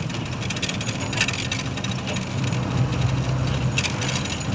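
Vehicle engine running steadily under road and wind noise, heard from inside the moving vehicle. Two short, sharper noises come about a second in and near the end.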